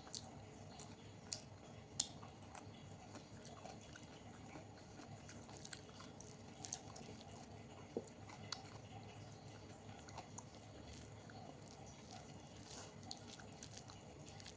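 Faint, close-up chewing and wet mouth sounds of someone eating a meal of dal, rice and vegetables, with scattered small clicks throughout; the sharpest click comes about two seconds in.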